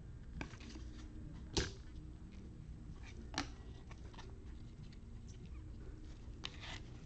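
Faint handling of trading cards, soft rustles and light clicks, with two sharper clicks about one and a half and three and a half seconds in, over a steady low hum.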